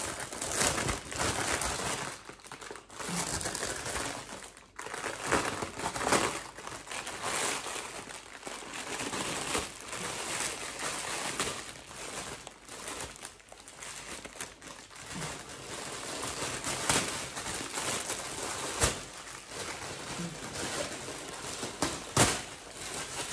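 Plastic packaging bag crinkling and rustling as it is handled and opened, in uneven bursts, with a couple of sharp snaps near the end.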